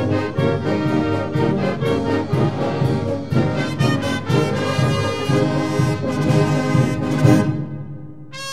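Symphonic wind band playing a pasodoble, full ensemble with the brass to the fore. The playing thins out about seven and a half seconds in, and a held brass chord enters at the very end.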